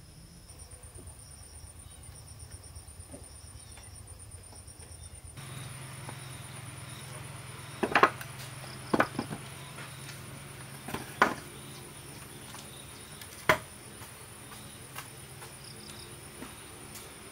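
A wooden bench knocking down on a concrete floor several times, the loudest knock about eight seconds in, over a steady high insect trill.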